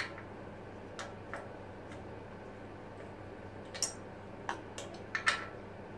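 Scattered sharp metal clicks and taps from an Allen key being worked a short turn at a time in a band saw's motor-securing bolt, loosening it so the motor can move for a belt speed change; the clicks come irregularly, with a quick cluster near the end.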